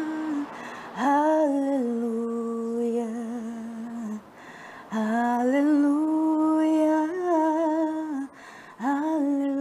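A woman singing long held notes without words, the close of a Portuguese worship song, in three phrases that each begin with a quick upward slide, with short breaths between them.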